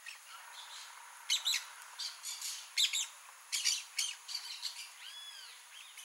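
Blaze-winged parakeets calling: a series of short, rasping calls in bursts every half second to a second, followed about five seconds in by a brief arched whistled note.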